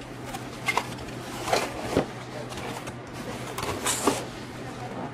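Cardboard pie box being folded shut by hand: several short scrapes and taps as the flaps and lid are tucked in, the loudest near the end, over a steady low hum.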